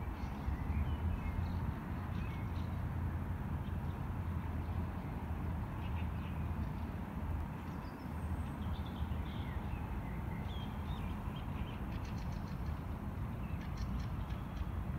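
Wild birds chirping and calling now and then, with a couple of quick trills near the end, over a steady low rumble.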